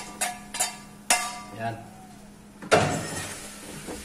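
Metal spoon clinking against a stainless steel bowl as fried chopped chicken gizzard is scooped in: a few light clinks in the first second, then one louder ringing clank a little under three seconds in.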